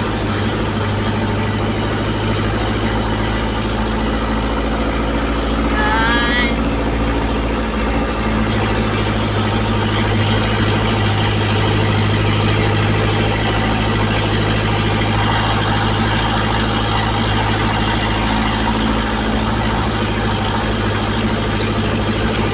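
Vehicle engine running steadily with road and tyre noise, heard from inside the cabin while driving. A brief high-pitched chirp sounds about six seconds in.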